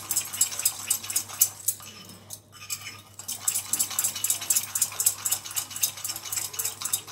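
A metal spoon beating a thick paste of icing sugar and water in a ceramic bowl: quick clinking and scraping strokes against the bowl, several a second. The strokes ease off briefly between about two and three seconds in.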